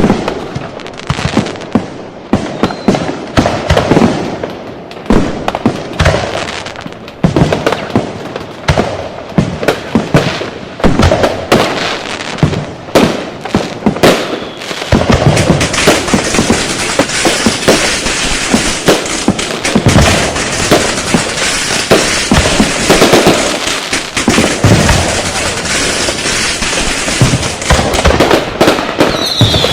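Firecrackers and fireworks going off in rapid, irregular bangs. From about halfway they thicken into a near-continuous barrage of cracks and booms, and a short falling whistle sounds near the end.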